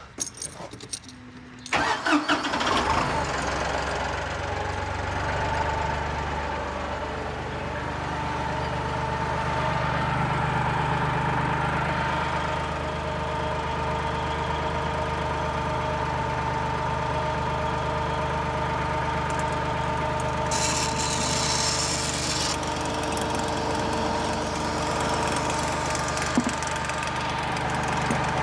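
Compact tractor engine starting about two seconds in, then idling steadily while it drives the sprayer's pump to agitate the tank mix. A brief hiss rises over the engine about twenty seconds in.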